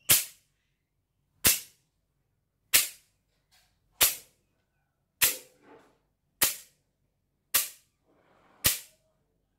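Krap phuang, a Thai bundle clapper of wooden slats with thin copper plates between them, snapped shut eight times at an even pace of about one clap every 1.2 seconds: sharp clacks, each with a brief tail.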